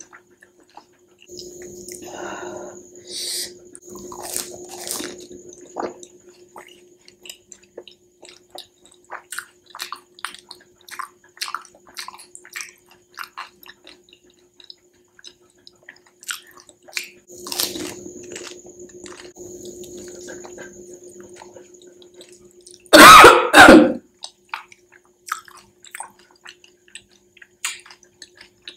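Close-up mouth sounds of eating panipuri: wet chewing with small crackles as the crisp puri shells and their spiced water are eaten. About 23 seconds in come two loud coughs, the loudest sound.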